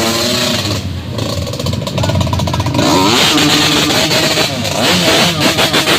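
Off-road trail motorcycle engines revving, the pitch rising and falling again and again as the throttle is worked, with a sharp rise about three seconds in.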